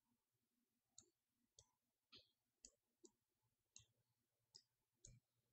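Faint computer mouse clicks, about eight of them at irregular intervals, made while dragging an online map.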